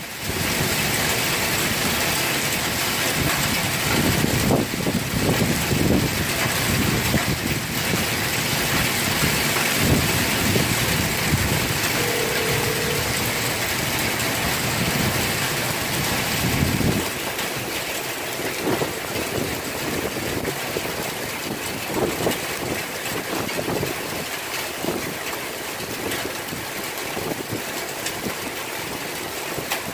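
Heavy rain mixed with hail pelting wet pavement, a dense steady hiss. A low rumble under it drops away about halfway through.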